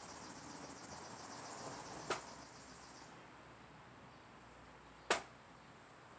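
Two sharp knocks from a sword drill, about three seconds apart, over a faint high chirring that stops about three seconds in.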